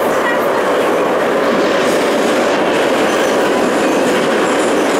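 Ezh3 metro train running at speed, heard from inside the car: a steady, loud rumble of wheels and running gear.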